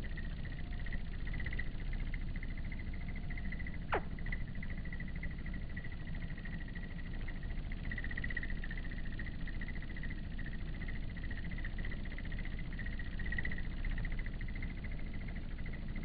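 Crickets trilling steadily in a high, pulsing tone over a low rumble, with a single quick downward-sweeping chirp about four seconds in.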